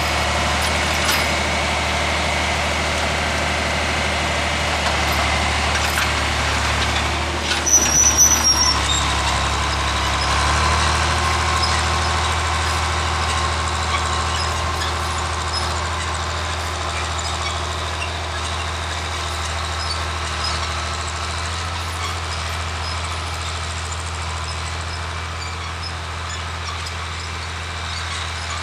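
John Deere 4010 tractor's six-cylinder engine pulling a chisel plow through soil under load, running steadily and slowly fading as the tractor moves away. A short clatter with a high squeak comes about eight seconds in.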